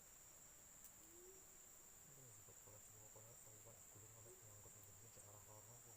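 Faint, steady, high-pitched drone of forest insects such as crickets or cicadas. A faint low murmur, like distant talk, joins from about two seconds in.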